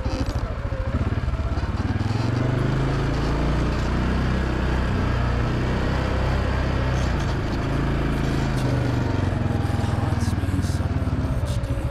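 ATV engine running steadily as the machine is ridden, its pitch shifting a little up and down.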